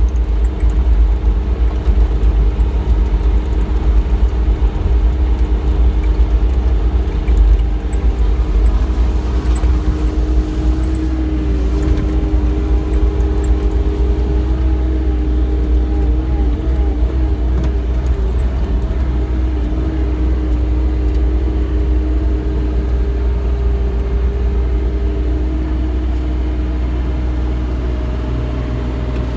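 Bobcat E35 mini excavator's diesel engine running steadily, a deep rumble with a steady hum over it. It is a little rougher for the first ten seconds or so, then evens out.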